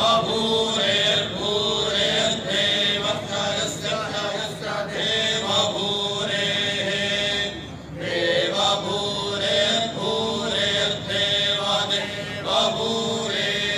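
A group of men chanting Vedic mantras in unison, led by one voice on a microphone, in steady held recitation tones, with a short breath pause about eight seconds in.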